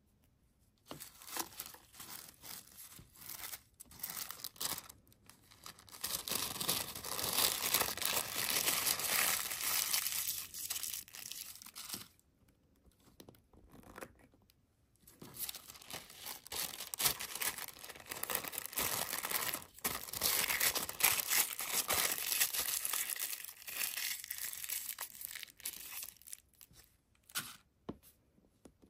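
Thin clear plastic wrapping being crinkled and rustled by hand, in dense crackling stretches that stop for about three seconds midway and tail off near the end.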